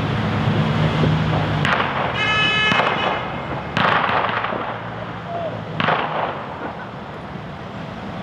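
Fireworks going off: three separate bangs about two seconds apart, each with a short rumbling tail, over a steady rush of wind noise. A brief high tone sounds just after the first bang.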